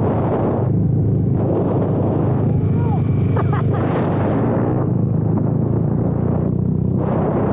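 Motorcycle engine running steadily at riding speed, heard from the rider's seat, with wind rushing over the microphone that eases off and comes back several times.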